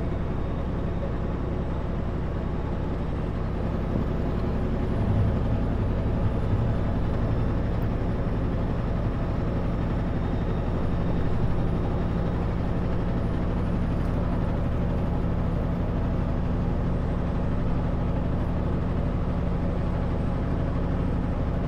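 Kenworth W900L semi truck's diesel engine running steadily on the highway, heard from inside the cab as a low, even hum with road noise.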